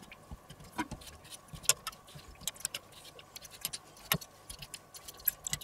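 Scattered light clicks and taps of a fork knocking against a glass pickle jar as gherkins are fished out and laid on a wooden cutting board, a few sharper knocks among them.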